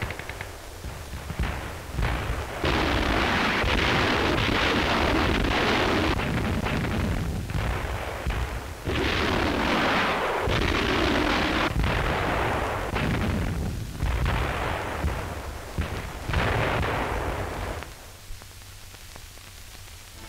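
Combat sound on an old newsreel soundtrack: artillery and gunfire explosions, a run of loud noisy blasts with sharp onsets about 2.5, 9, 10.5 and 16.5 seconds in. The sound falls much quieter for the last couple of seconds.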